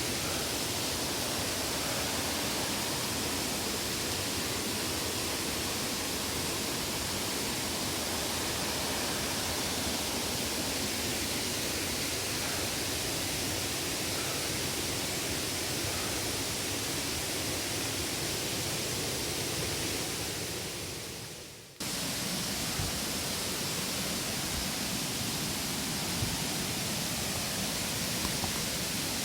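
Steady rushing of a tiered waterfall's falling water. About two-thirds of the way through it fades down, then comes back at full level abruptly.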